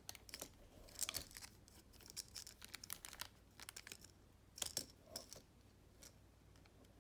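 Packaging crinkling and rustling as it is handled, in short bursts that are loudest about a second in and again just before the five-second mark.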